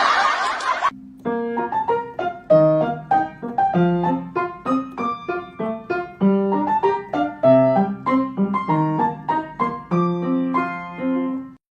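Solo piano music: a melody of separate struck notes, a few a second, that starts about a second in and stops just before the end. In the first second there is a short, loud noisy burst.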